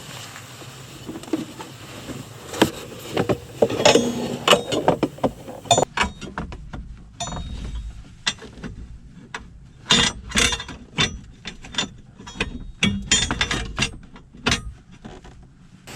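Irregular clicks, knocks and light metallic rattles of hand tools and plastic parts being handled, with a steady hiss behind them that stops abruptly about six seconds in.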